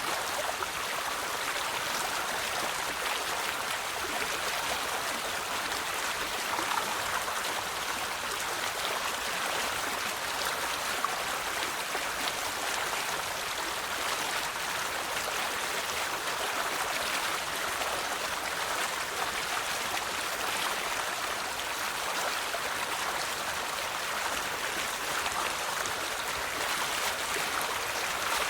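A river running over stones, a steady babbling and rushing of water.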